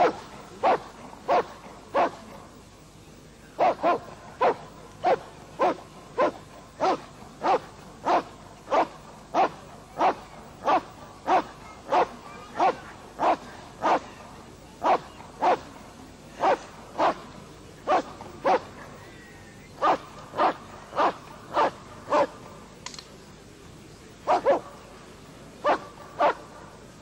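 A dog barking over and over in a steady rhythm, about three barks every two seconds, breaking off twice for a second or two.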